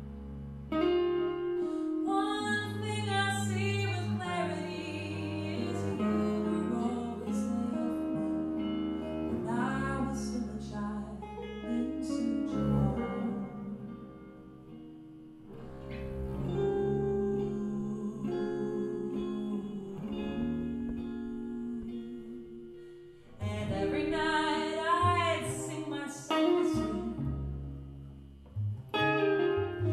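Live music: a woman singing in phrases with short pauses, accompanied by an upright double bass and an electric guitar.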